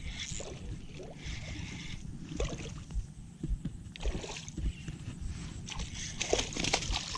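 Wind rumbling on the microphone, with a few short splashes at the water's surface.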